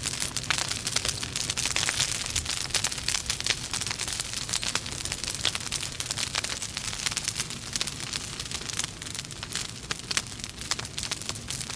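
Logs burning in a fireplace, crackling steadily with many small, irregular snaps over a soft hiss.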